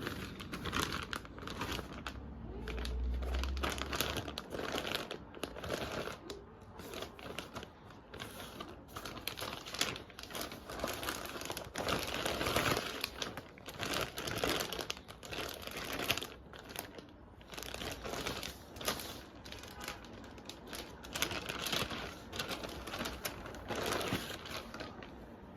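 Plastic packaging crinkling and rustling irregularly as a parcel is handled and opened, with a short low hum about three seconds in.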